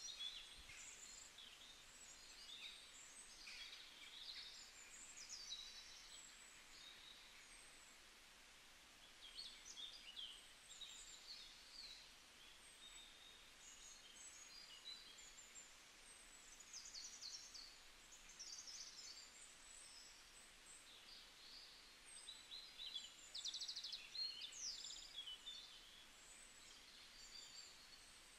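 Faint birdsong: many small birds chirping and trilling in short high calls, overlapping and continuing without a break.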